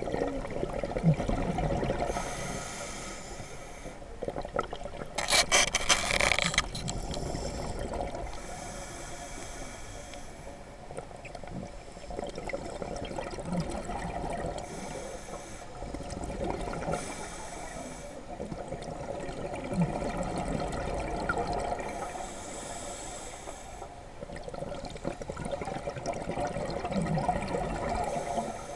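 Scuba regulator breathing heard underwater: a steady watery hiss with bubbly bursts every few seconds, the loudest about five to seven seconds in.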